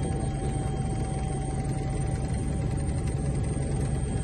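Helicopter running in flight, heard from inside the cabin: a steady low drone of rotor and engine with a thin steady whine above it.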